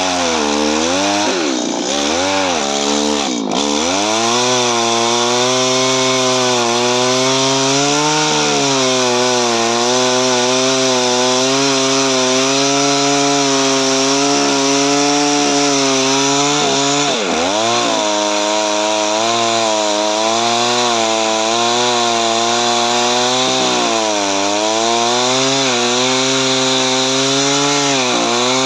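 A pole chainsaw runs steadily while cutting into a tree branch. Its motor note dips in pitch several times in the first few seconds and once more about two-thirds through, as the chain bogs down in the wood.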